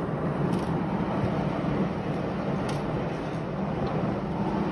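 Steady low rumbling noise of storm wind, with a few faint ticks.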